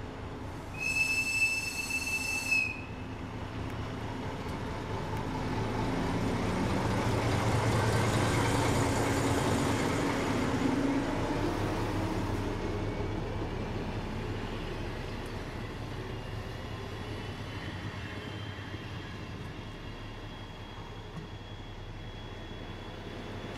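ČD class 742 diesel locomotive's six-cylinder ČKD engine pulling away under load with a passenger train. A high whistle blast of about two seconds comes near the start. The engine grows loudest as the locomotive passes, about eight seconds in, then fades as it draws away. A faint rising wheel squeal follows on the curve in the second half.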